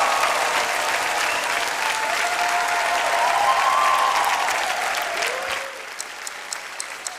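Audience applause, fading out about five and a half seconds in and leaving a few scattered claps.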